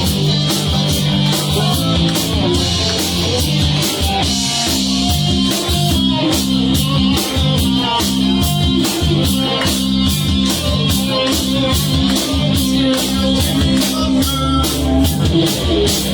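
Live rock band playing an instrumental stretch: electric guitar over bass and drum kit, with an even, steady beat.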